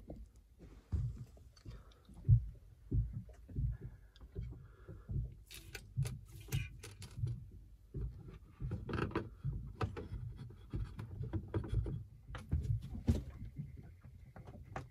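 Hands working a rubber fuel hose and fittings into a plastic fuel can: irregular soft thumps, with sharper clicks and knocks in the middle and later part.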